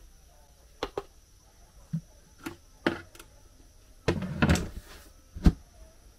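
Handling of plastic containers while scooping flour: a handful of light knocks from a plastic scoop, then a scraping clatter and one sharp thump near the end as a plastic lid is fitted back onto a plastic barrel.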